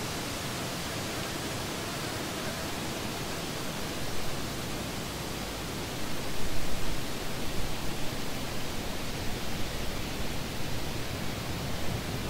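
Steady, even hiss of noise with no distinct tones. From about six seconds in, a low, uneven rumble underneath grows louder.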